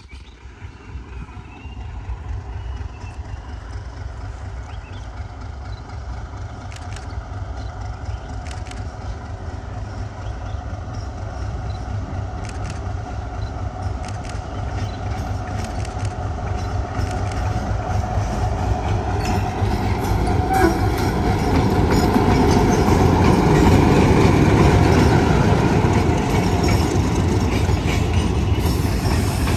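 Vietnam Railways D13E diesel-electric locomotive and its train approaching, the engine rumble and the rolling of the cars growing steadily louder, loudest about 24 seconds in.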